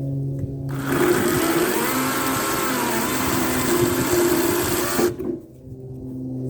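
Harbor Freight Lynx 40-volt, 14-inch cordless chainsaw. Its electric motor runs with a steady pitched whine, then the chain cuts through an oak limb for about four seconds with a rough, loaded sound. Near the end it returns to free-running.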